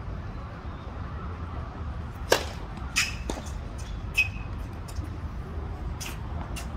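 Tennis racket striking the ball on a serve: one sharp pop a little over two seconds in, followed by several fainter knocks, over a steady low outdoor rumble.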